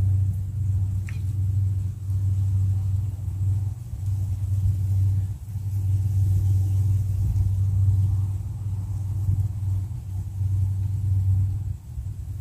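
Wind buffeting the microphone in an open field: a steady low rumble that swells and dips every few seconds.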